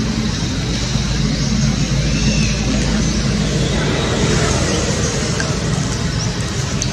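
Steady low rumble of a running vehicle engine under a constant hiss, without a break.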